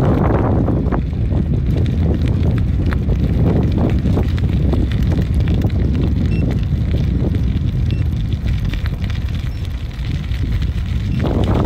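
Wind buffeting the microphone of a camera riding on a moving bicycle: a steady low rumble, with stronger gusts at the start and again near the end.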